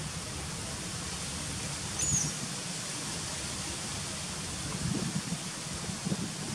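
Steady outdoor background hiss, with one short high chirp about two seconds in and a few faint low sounds near the end.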